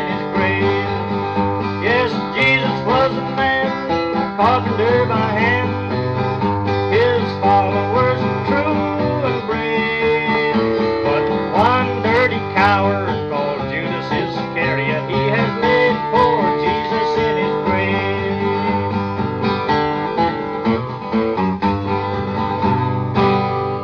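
Acoustic guitar playing a folk tune over a steady bass line, with a pitched melody line above it; the music stops right at the end.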